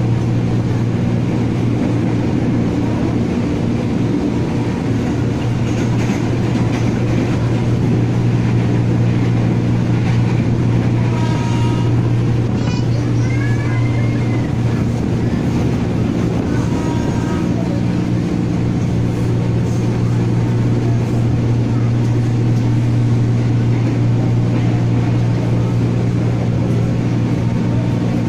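Ex-JR East 205 series electric commuter train heard from inside the car while running: a steady, loud low hum under a continuous haze of running noise.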